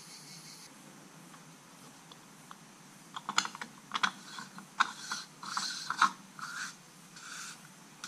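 Plastic coolant expansion tank cap on a BMW B58 engine being turned shut by hand: a run of sharp plastic clicks and short scrapes starting about three seconds in, as it is turned until it clicks into place.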